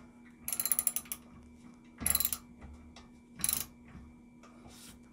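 Socket ratchet wrench clicking in short runs as the handle is swung back and forth, tightening a nylon lock nut onto a cap screw. There are about four runs of rapid pawl clicks, the first the longest and the last faint.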